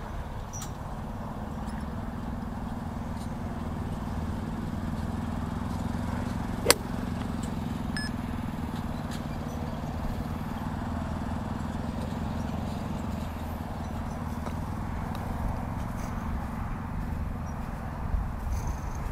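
A single sharp crack of a golf iron striking the ball off turf, about a third of the way in, over a steady low rumble.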